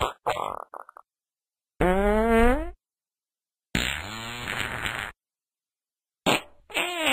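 A string of separate farts cut one after another with dead silence between them: a short sputtering one, a pitched one rising in tone about two seconds in, a longer buzzing one near four seconds, and another starting near the end.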